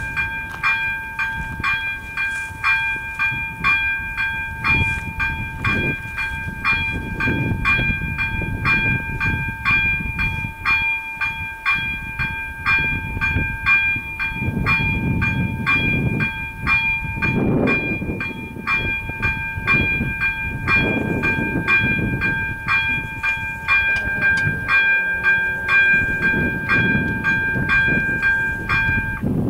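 Electronic level-crossing warning bell of the crossing's AŽD 97 signals ringing with an even ding at about two strikes a second, warning of an approaching train. It stops near the end, as the barriers come down.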